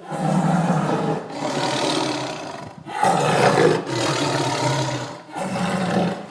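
Tiger roaring: a run of long, loud roars one after another, each lasting a second or two with brief breaks between.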